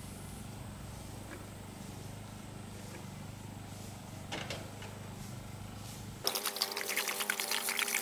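A steady low hum for about six seconds, then water glugging and splashing as it is poured from a five-gallon water jug into the tub of a top-loading washing machine.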